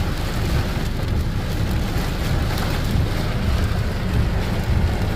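Heavy rain beating on a car's roof and windshield, heard from inside the cabin: a steady hiss over a deep rumble.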